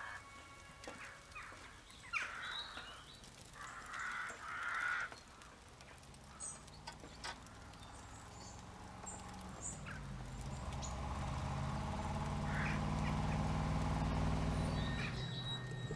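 Crows cawing in a wood, then the low hum of a motor vehicle's engine approaching, growing louder from about ten seconds in.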